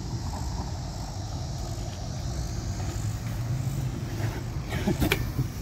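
BMX tyres rolling on pavement as a low, steady rumble, with a sharp knock about five seconds in.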